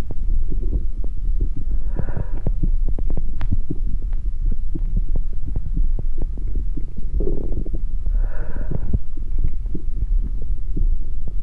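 Amplified heart and body sounds: a loud, deep rumble thick with irregular soft clicks and knocks. Brief hissy swells come about two seconds in and again around seven to nine seconds in.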